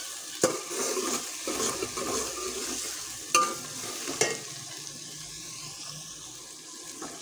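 Sliced onions and green chillies frying in oil in a metal pot, sizzling steadily, while a metal ladle stirs and scrapes them, knocking sharply against the pot three times. The stirring stops a little past halfway, leaving only the sizzle.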